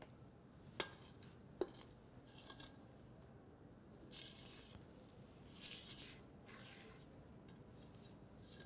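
Spatula scraping cake batter out of a stainless steel mixing bowl in several short, soft swishes. Two sharp taps come about a second and a second and a half in.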